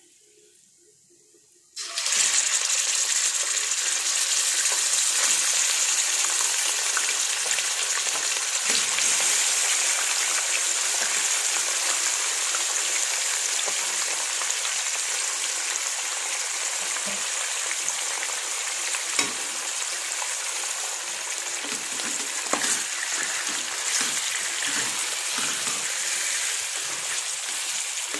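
Raw mutton pieces dropped into hot oil in a kadhai, setting off a loud sizzle that starts suddenly about two seconds in and carries on steadily. There are a few sharp knocks as the meat is turned in the pan.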